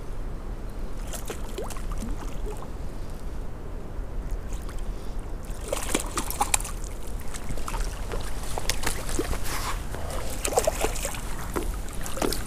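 Wind rumbling on the microphone, and from about halfway a hooked trout splashing at the water's surface as it is played, among scattered clicks and rustles of handled gear.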